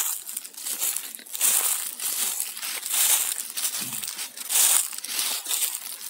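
Footsteps crunching and rustling through dry fallen leaf litter, in an uneven walking rhythm.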